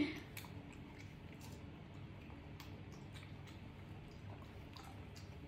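Faint chewing and mouth clicks of a macaque eating soft fruit: a few scattered small clicks over a low, steady room hum.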